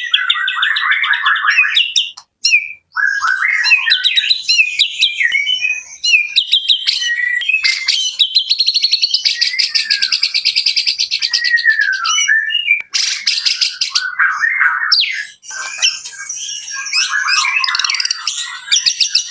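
White-rumped shama (murai batu) singing a long, varied song of whistled phrases and chattering notes, broken by brief pauses. About eight seconds in it delivers a rapid trill lasting around four seconds.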